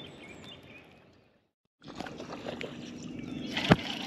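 Outdoor lake background fades out to a moment of silence. It then cuts to the handling of a baitcasting reel and line, with a few sharp clicks, the loudest a little after three and a half seconds, over a steady low hum.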